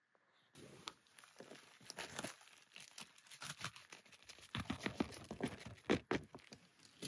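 Thin plastic zip bag crinkling and rustling in the hand as dry breakfast flakes are poured from it into a wooden cup, with irregular crackles starting about half a second in.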